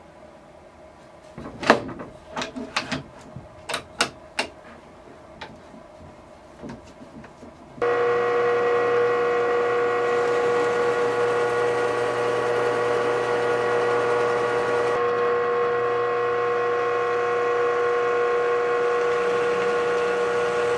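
A dozen or so sharp knocks and clunks as the clamped wooden tabletop is handled. Then, about eight seconds in, a bench drill press switches on and runs steadily with a strong humming whine, drilling into a wooden block, and stops right at the end.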